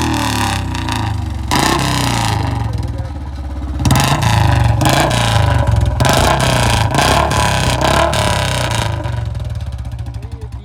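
Royal Enfield Bullet BS4 single-cylinder engine and exhaust, blipped repeatedly in short revs. After about nine seconds it drops back to a slow idle with separate beats you can pick out.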